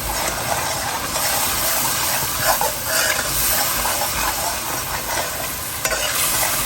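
Tomato-and-spice masala sizzling in oil in an aluminium kadhai as it is stirred, with a few short scrapes against the pan.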